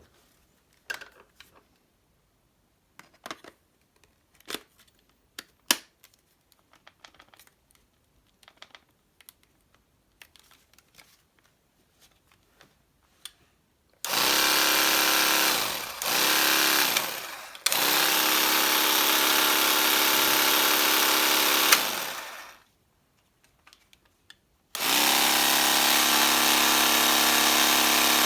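Small motor of a Black & Decker handy saw converted to a Makita 7.2V lithium battery, switched on in four runs: two short ones, then one of about four seconds, and a last one near the end. Each run winds down when the trigger is released. Scattered light clicks and handling knocks come before the first run.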